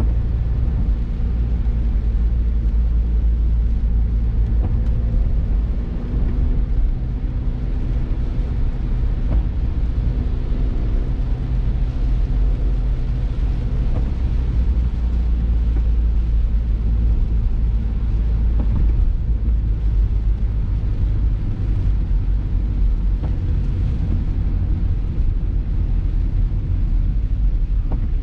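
Inside a car driving on a rain-soaked road: a steady low rumble of engine and road noise, with a hiss of tyres on the wet pavement.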